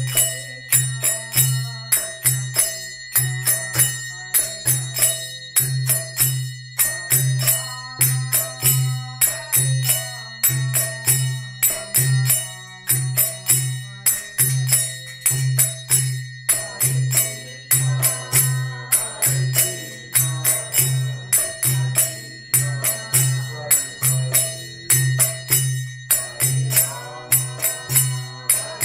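Kirtan devotional music: small hand cymbals (kartals) struck in a steady rhythm and left ringing, over a pulsing drum. A wavering melody comes in about seventeen seconds in.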